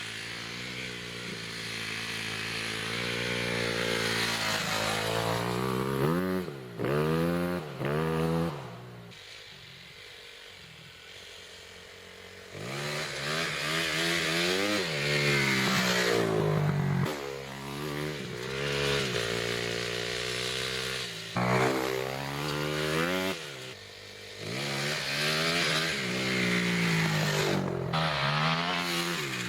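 Dirt bike engine being ridden and revved, its pitch climbing and dropping in repeated swells. It falls to a quieter, lower note for a few seconds near the middle before revving up again.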